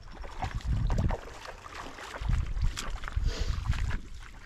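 Gusts of wind buffeting the microphone in low rumbles, with light splashing of water as a hooked salmon is drawn into a landing net at the canal edge.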